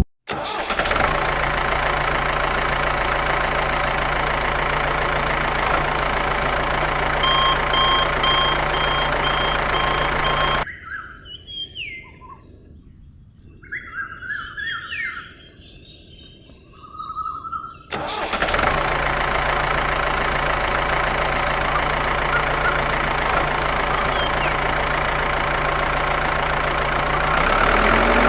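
Steady running of a small engine, with a quick run of evenly spaced high beeps about a third of the way in. The engine cuts out for about seven seconds in the middle, leaving birds chirping, then resumes.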